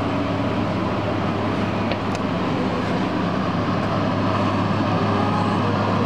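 Electric fan running steadily in the lid of an ice chest, blowing air out through a 4-inch PVC elbow: a constant low hum with a steady rush of air.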